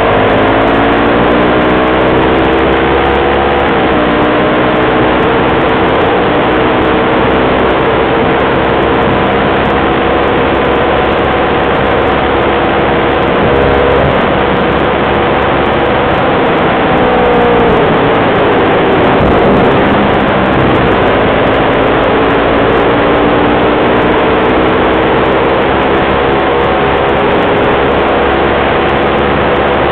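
ATV engine running under way, its pitch dipping as it slows about two-thirds of the way through and then rising again as it speeds back up, over a steady rush of wind and tyre noise.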